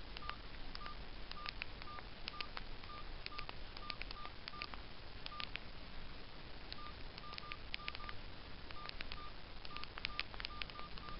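Orange Rio mobile phone's keypad beeping as a text message is typed on its QWERTY keyboard: a short beep at one pitch with each keypress, together with light key clicks. The presses come in irregular runs, with a pause of about a second around the middle.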